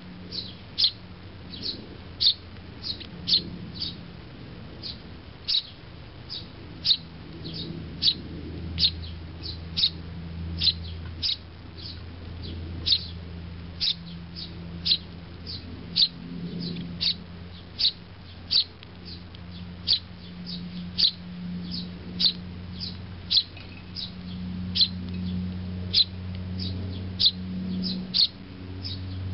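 Eurasian tree sparrows, a fledgling with its parent, giving a steady run of short, sharp, high chirps, about one or two a second, typical of a fledgling begging to be fed.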